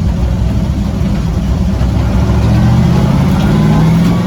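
Twin-turbo destroked 6-litre LS V8 running under way, its pitch climbing steadily as the truck accelerates through the second half and falling back right at the end.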